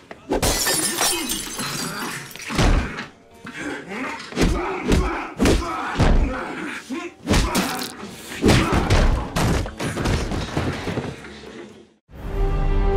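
Movie fist-fight sound: a quick series of punches and heavy body thuds, with men grunting between blows. About a second before the end the sound cuts out abruptly, and music with held tones comes in.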